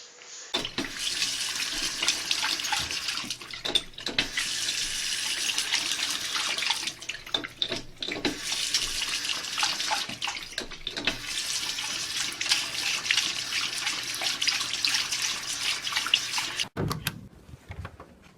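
Water running from a tap into a sink, a steady splashing hiss with scattered clicks and knocks, stopping suddenly near the end.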